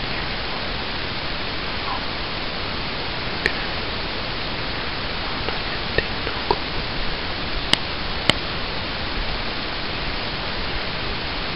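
Steady loud hiss, with a few sharp clicks between about three and a half and eight and a half seconds in.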